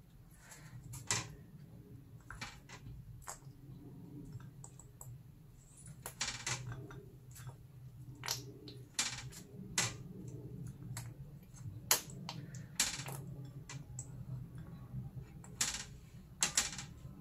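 Irregular light clicks and taps from a food-colouring pen being uncapped, handled and dabbed onto a hard-iced cookie on a glass plate, over a low steady hum.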